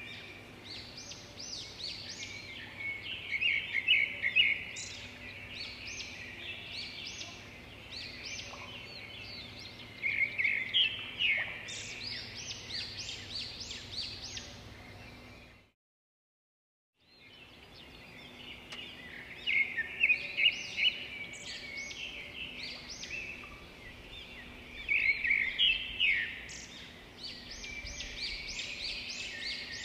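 Birdsong: dense, high chirps and trills from several birds. It cuts out completely for about a second and a half halfway through, then starts over with the same run of calls, as a looped birdsong track does.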